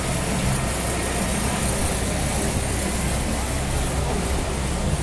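Busy street ambience dominated by a motor vehicle engine running close by, a steady low hum with faint voices of passers-by beneath it.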